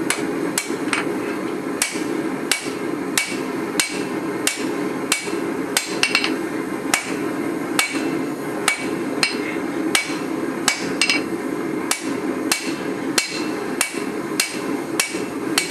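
Hammer blows on the hot steel of a wakizashi sword blank at the anvil, roughly one and a half strikes a second, some with a short metallic ring, forming the shoulder of the tang. A steady hum sits under the strikes.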